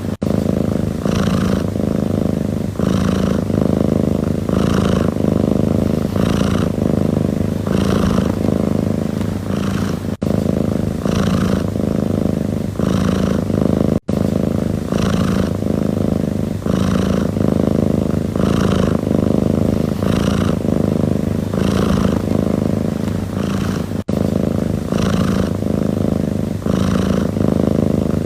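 Domestic cat purring steadily, the rumble pulsing in a regular rhythm with its breathing in and out. The sound cuts out for an instant a few times.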